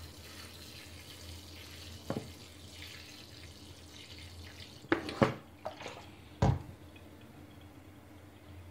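Water poured from a plastic bottle onto the soil of a potted bonsai in a sink, a soft steady trickle as it soaks in and drains through the pot. The pouring stops after about four and a half seconds. A few sharp knocks and one louder thump follow as the bottle is handled and set down.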